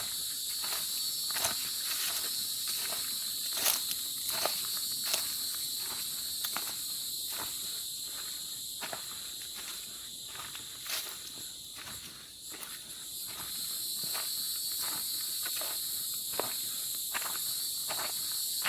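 Footsteps on a forest trail at a steady walking pace, about three steps every two seconds, over a continuous high-pitched chorus of insects.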